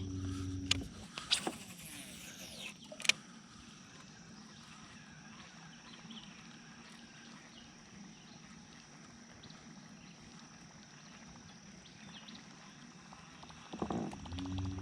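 Quiet outdoor river ambience with a thin, steady high-pitched drone. A small motor's hum cuts off early on and starts again near the end, and three sharp knocks fall in the first three seconds.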